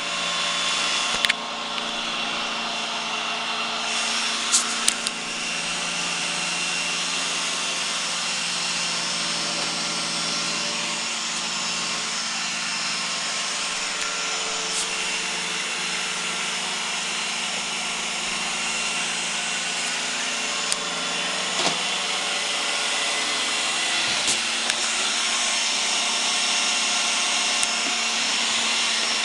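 iRobot Roomba 980 robot vacuum running: a steady whir from its motor and brushes, with a few sharp clicks along the way.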